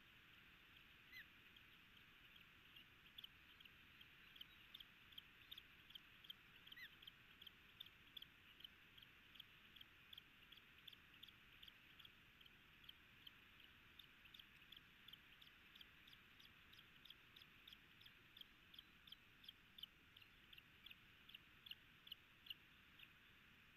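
Ospreys calling: a long series of short, high chirps, about two to three a second, each dropping slightly in pitch.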